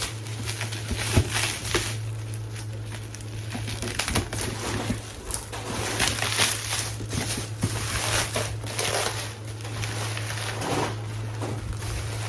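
Plastic packaging crinkling and rustling in repeated short bursts as the air purifier filter is unwrapped and handled, over a steady low hum.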